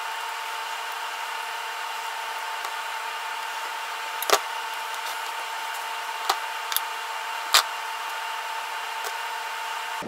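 Small clicks and taps of stranded copper wire, crimp-on terminals and pliers being handled, four sharp ones between about four and eight seconds in, over a steady hiss with a faint high hum.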